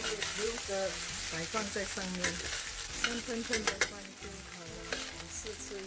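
Metal spatula stirring and tossing fried rice in a stainless steel wok, scraping against the pan over a light sizzle, with a few sharp clinks about three and a half seconds in.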